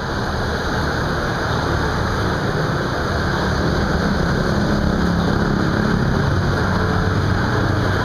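Street traffic: a steady rush of noise from passing motorbikes and cars, with a low engine hum growing stronger in the middle as a vehicle passes close.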